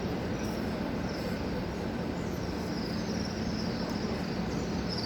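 Steady wash of crowd ambience from a large throng of pilgrims, indistinct with no clear voices, over a constant low hum and a faint thin high whine.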